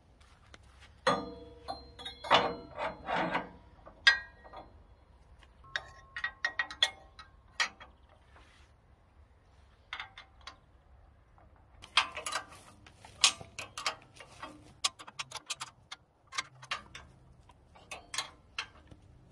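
Steel parts of a Norwood HD36 sawmill's lift assembly clinking as washers and a steel shaft are fitted into the bracket. The first few seconds bring a run of sharp metal clinks that ring on briefly, with one hard strike at about four seconds. Scattered clusters of lighter clicks and taps follow.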